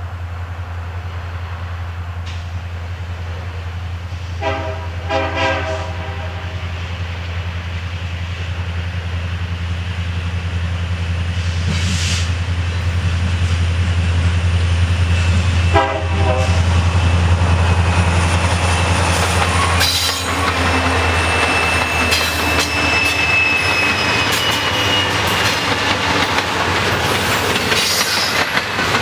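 Diesel locomotives of a Norfolk Southern freight approach with a deep, steady engine rumble that grows louder. The lead SD70M-2's air horn sounds a few short blasts about five seconds in and one brief blast about sixteen seconds in. From about twenty seconds on the train passes close by, with rolling wheel clatter and high-pitched wheel squeal.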